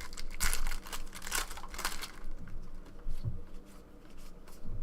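Crinkling and rustling of trading cards and a foil pack wrapper being handled, busiest in the first half and sparser near the end.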